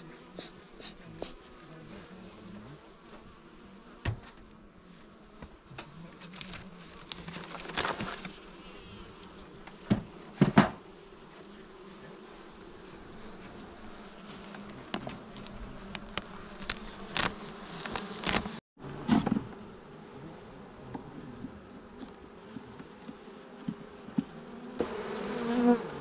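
Honeybees buzzing in a steady hum around an opened hive, broken by occasional sharp knocks as the hive and its frames are handled.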